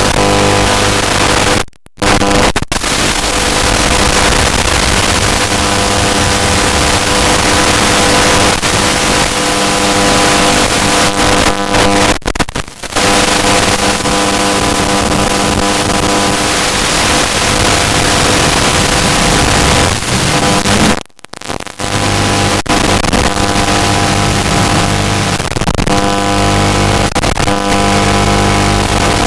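Loud static hiss with a steady buzzing hum underneath, the audio channel of an analog FPV goggle recording; it drops out briefly three times.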